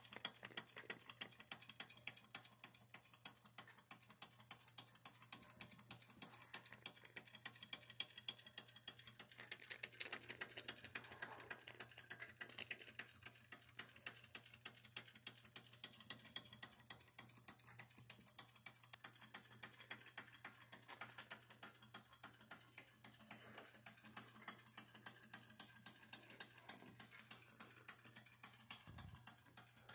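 Wilesco D11 live steam engine and its reduction gearing running, driving a model pump jack: a quiet, fast, even stream of light mechanical ticking.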